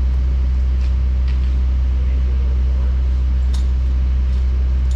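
Heavy diesel machinery engine running steadily, a deep even drone with a few faint ticks over it.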